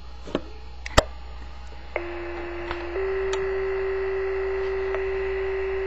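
Two-tone sequential paging tones for a fire-department page, heard over a scanner radio: a lower tone held for about a second, then a slightly higher tone held for about three seconds. These are the tones that set off the Motorola Minitor II pager. A couple of faint clicks come before the tones.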